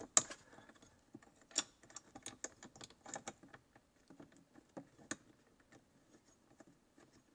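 Irregular light clicks and taps of bolts being screwed in by hand to fasten a touch-screen swivel bracket, with a few sharper clicks among them; the clicking thins out near the end.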